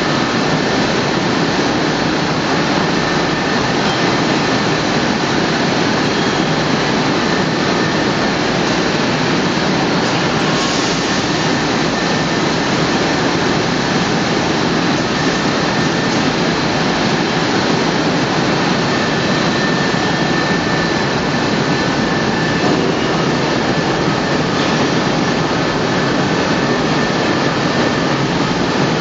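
No-twist welding wire coiling machine running: steady, loud machine noise with faint high whining tones held throughout.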